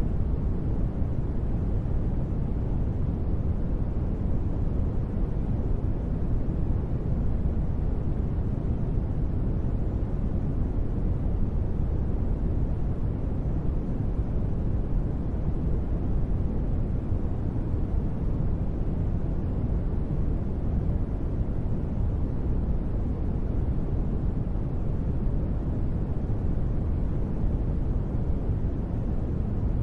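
Steady ambient noise track, a deep, even rumbling hiss weighted toward the low end, with no changes or events.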